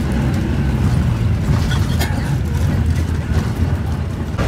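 Bus engine and road noise heard inside the moving bus's cabin: a steady low rumble.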